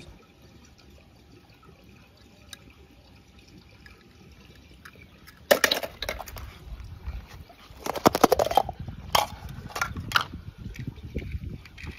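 Water splashing and sloshing as small toy cars are dropped into it: quiet at first, then a sudden splash about halfway through, followed by several more splashes and sloshing.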